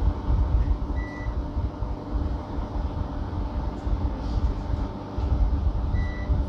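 A steady low rumble, with two short high beeps about five seconds apart.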